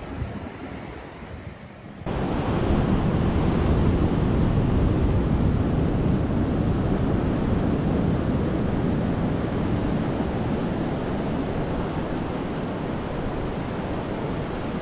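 Ocean surf with wind on the microphone, a steady loud wash of noise that cuts in suddenly about two seconds in after a quieter stretch.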